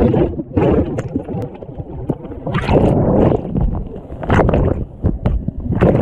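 Churning whitewater heard from a camera tumbling under the surface: muffled rushing and bubbling, with louder splashing surges every second or so.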